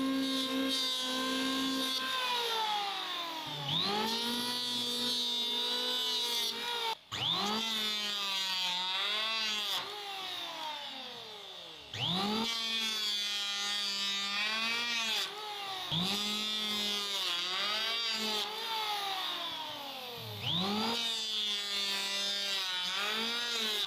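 Electric power sander sanding wooden table-leg pieces. It is started several times, its whine rising each time, and the pitch sags and recovers as it is pressed into the wood.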